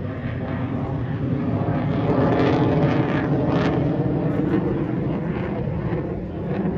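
Engine of a display aircraft flying overhead: a steady rumble that swells to its loudest about two to three seconds in, then eases a little.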